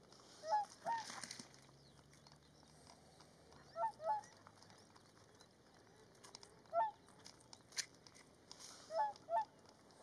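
Whooper swans honking: short calls, mostly in pairs, coming four times a few seconds apart. One sharp click sounds near the end.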